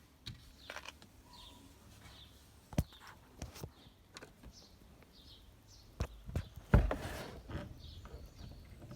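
Sparse clicks and knocks of dashboard trim and parts being handled in a BMW E46 during disassembly, the loudest knock about seven seconds in. Faint bird chirps in the background.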